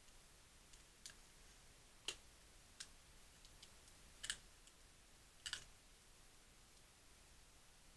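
Faint, sharp clicks and crackles from small objects being handled in the hands, about five of them scattered through an otherwise near-silent room.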